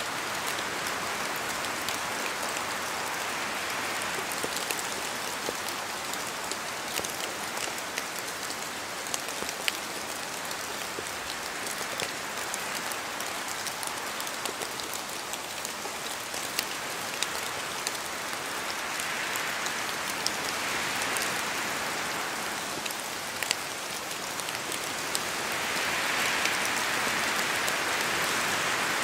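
Steady rain falling in a forest, with many sharp ticks of single drops landing from the trees. Wind swells through the leaves a few times, most strongly near the end.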